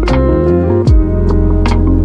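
Instrumental background music with a steady beat over sustained bass notes, and a quick falling bass swoop about a second in.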